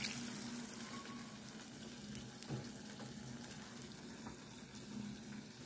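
Chow mein with cabbage and peppers sizzling in a pot, a steady, fairly faint hiss over a low hum.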